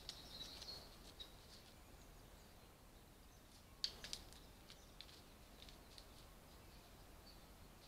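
Faint woodland ambience: small birds chirping faintly in the first second or so, then a cluster of sharp clicks about four seconds in, followed by a few fainter ticks.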